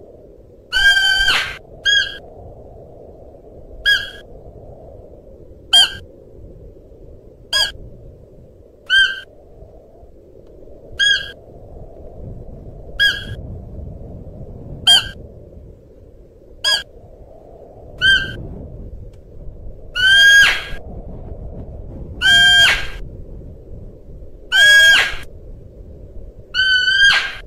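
Siberian musk deer calling: a series of short, high-pitched cries about every two seconds, with longer drawn-out cries near the start and again in the last third, over faint steady background noise.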